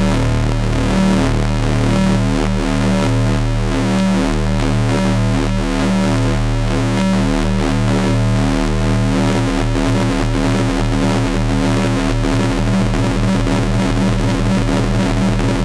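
Astrogorus synthesizer playing a dense, noisy drone: loud, steady low tones stacked with many overtones, pulsing rhythmically. The low-end pulsing grows more distinct in the last few seconds.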